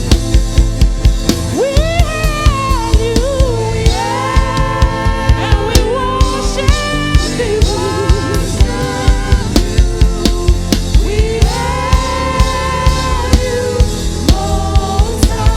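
Live gospel praise band playing with drum kit keeping a steady beat, a sung or melodic lead line gliding over sustained keyboard chords.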